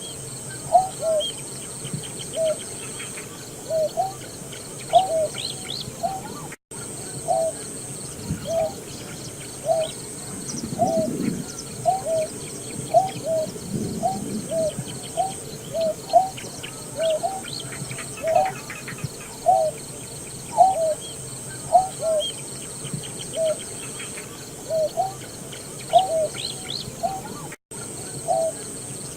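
Greater painted-snipe calling: a long, even series of short, low hooting notes, about one or two a second, some in quick pairs. Faint chirps of other birds sound higher up behind them.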